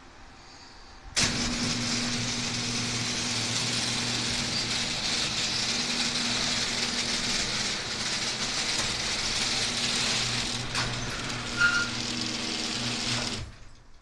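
Electric garage door opener running as it raises a sectional garage door along its tracks: a steady motor hum under a continuous rattle of the moving door, starting abruptly about a second in and cutting off shortly before the end, with a brief squeak near the end.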